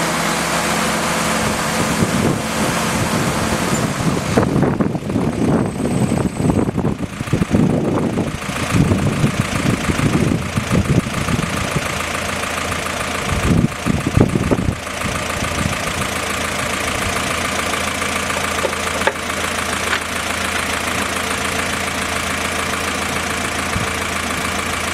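Willys CJ6 jeep engine running steadily, driving the front-mounted PTO winch as it works the cable. Irregular clanks and rattles come through for the first half, then the sound settles into a steadier run.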